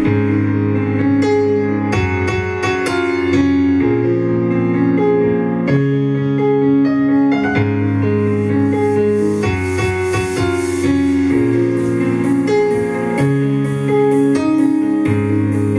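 Keyboard music with sustained piano-like chords, changing every second or two, played loud through a pair of Gradiente Master 100 three-way loudspeakers with 12-inch woofers.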